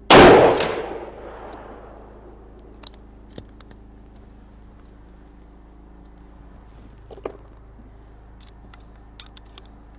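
A single loud pistol shot from a Thompson/Center Contender, ringing out and dying away over about a second and a half. Afterwards a petrol generator hums steadily, with a few small clicks and taps.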